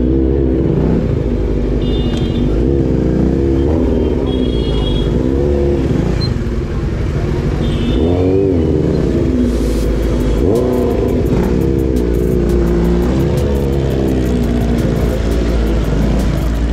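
Kawasaki Z900 motorcycle engine being blipped up and down again and again as it creeps through slow traffic, over a steady low rumble. Short horn beeps sound three times in the first half.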